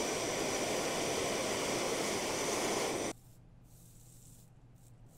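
Handheld gas torch flame hissing steadily while heating a copper pipe joint for soldering, then cutting off abruptly about three seconds in.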